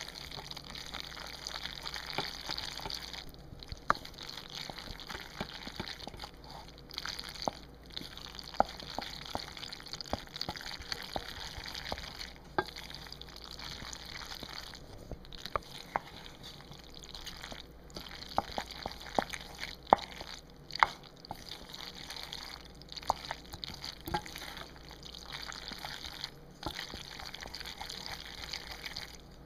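A spoon working through cooked macaroni and cheese, making many small wet, sticky clicks over a steady low hiss.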